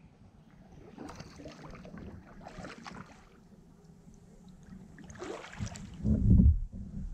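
Kayak paddle blades dipping and splashing in calm river water, a few strokes about a second or two apart, with water dripping. Louder low rumbles near the end.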